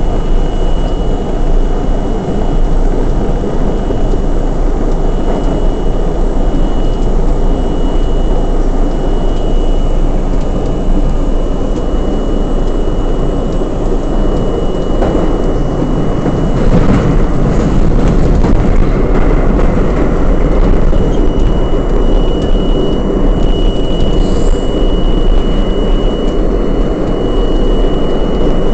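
R32 subway car running along the track: a steady loud rumble of steel wheels on rail and traction motors, with a thin high whine running through it that grows stronger in the second half.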